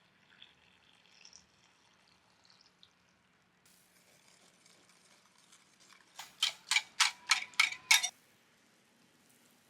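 A quick run of about eight sharp scraping or knocking strokes, roughly four a second, lasting about two seconds, after a few faint light clicks.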